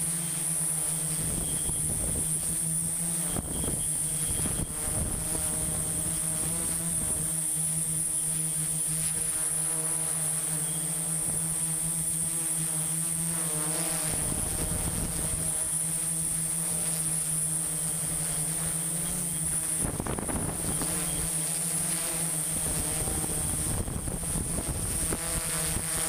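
Multirotor drone's electric motors and propellers running steadily, a continuous buzzing hum with a high whine above it, picked up by the drone's own onboard camera.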